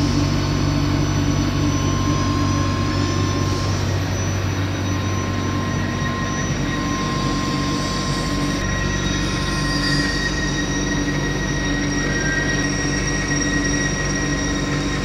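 Steady machine hum in a workshop: a constant drone with several high, unchanging whining tones over it.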